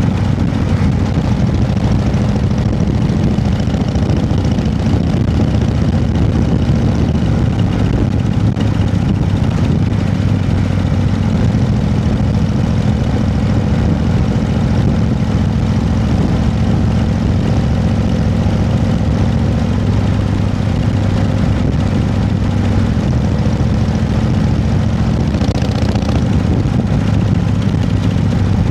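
An engine running steadily with a low, even drone that holds the same pitch throughout.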